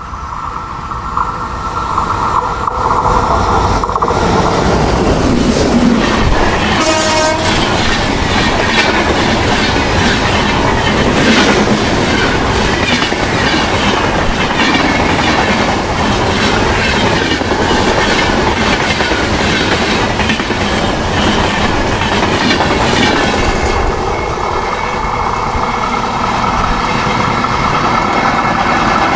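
Indian Railways express train hauled by an electric locomotive passing at speed: a short horn blast about seven seconds in, then the coaches' wheels clattering over the rail joints, easing a little near the end.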